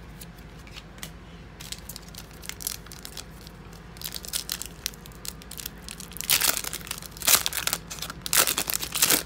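Foil wrapper of a 2016 Donruss football card pack being torn open and crinkled by hand. It starts with scattered crackles and turns into loud, dense crinkling in the last three seconds.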